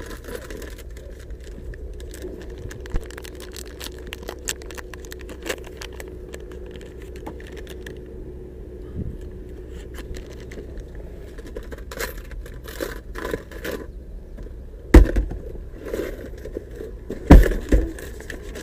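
Scattered small clicks, jingles and scrapes of things being handled over a steady low hum, with two loud knocks about fifteen and seventeen seconds in.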